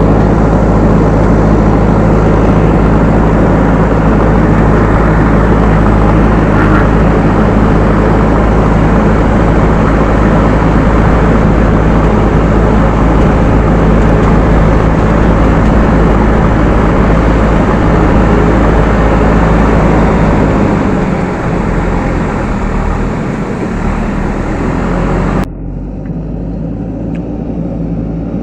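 JCB 3DX backhoe loader's diesel engine running loud and steady under working load. It eases off and its note changes about twenty seconds in, then drops abruptly to a quieter, duller running sound a few seconds before the end.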